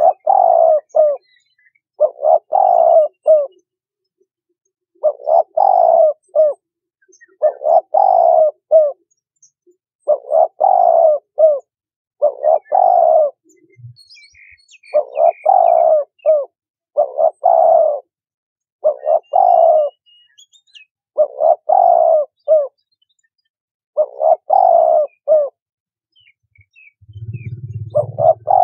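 Spotted dove cooing in a steady series of phrases of three or four low notes, one phrase about every two and a half seconds. Small birds chirp faintly in the background, and a low hum comes in near the end.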